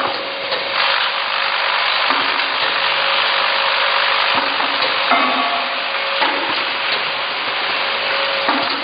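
Vibratory bowl feeders of an eye-drop bottle filling and capping machine running: a loud, steady rattling hiss of small plastic caps and plugs being shaken around the bowls and down the feed tracks, over a faint steady hum.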